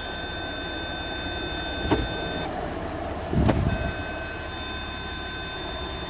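3.0-litre diesel V6 of a Jeep Grand Cherokee idling while the freshly refilled 5-speed automatic is shifted through its gears, with reverse slow to take up drive. A steady high electronic warning tone sounds, breaks off for about a second past the middle, then returns. There is a click about two seconds in and a heavier thump around three and a half seconds in.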